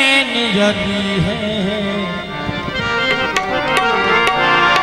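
Harmonium and tabla playing Sufi dhamal music, with a man's long, wavering sung note in the first half. A few sharp tabla strokes come in the second half.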